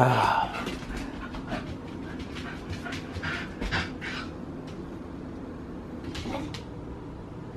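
Two pet dogs, a beagle mix and a yellow Labrador, begging for food: a loud, short dog call right at the start, then softer dog sounds and panting.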